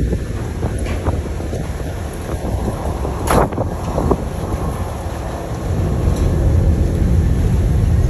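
Ferry's engines rumbling and its propeller wash churning the water against the quay as it berths, with wind buffeting the microphone. A brief loud rush about three seconds in, and the rumble grows louder about six seconds in.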